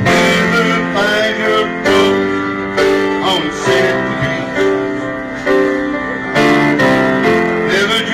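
Piano played live with a man singing along, a slow ballad with notes held and changing about every second.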